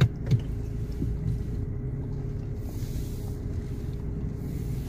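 Mercedes-Benz GLA 200's engine running at low speed in reverse, heard from inside the cabin as a steady low hum with a faint steady tone over it.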